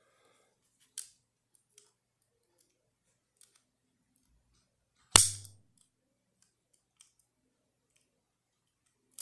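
A few small scattered metal clicks from the lock and tools as the oval lock is taken apart, and one loud, sharp metallic snap with a short ring about five seconds in.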